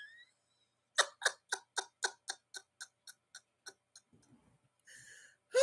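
A run of about eleven sharp ticks, about four a second, fading away over some three seconds, followed by a faint short hiss near the end.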